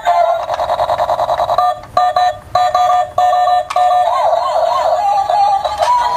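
Electronic beeping tune played through a small speaker: a fast trill for the first second and a half, then a run of short, evenly spaced beeps, then warbling tones that slide up and down.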